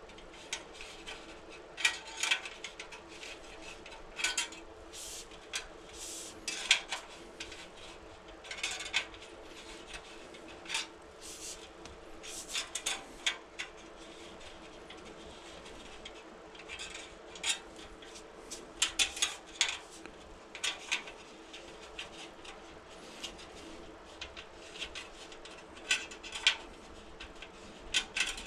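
Spoke key working the nipples of a freshly laced wheel: scattered light metallic clicks and clinks of the key, nipples and spokes, coming in irregular clusters as the spokes are snugged up evenly before tensioning.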